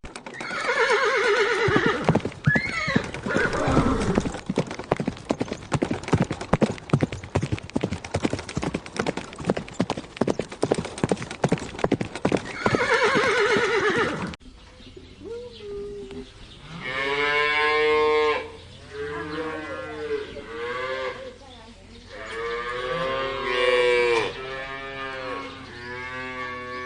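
Farm animal sounds: a loud, rapid, noisy stretch with a couple of high calls over the first half, then cattle mooing in about five separate drawn-out calls.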